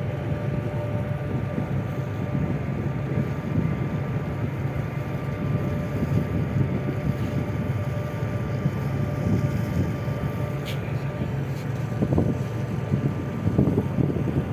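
Boat engine running steadily with a low hum, with wind buffeting the microphone.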